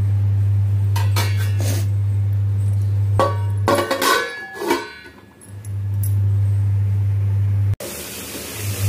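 A steel lid being set onto a metal kadhai: several sharp metal clinks and clatters that ring on briefly, the busiest a little past the middle, over a steady low hum.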